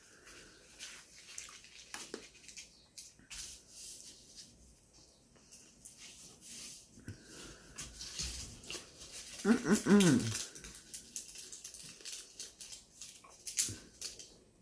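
Paper scraps being handled, with light rustling and tapping throughout. About two thirds of the way in comes one short whining vocal sound that wavers in pitch, the loudest sound here.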